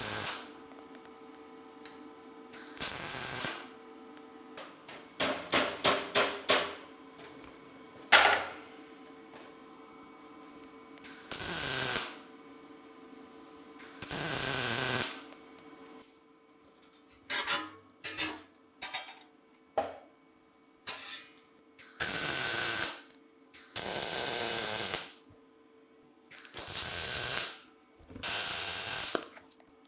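Welder laying short tack welds on a thin steel band: about eight bursts of roughly a second each, with clicks and taps of metal being handled between them.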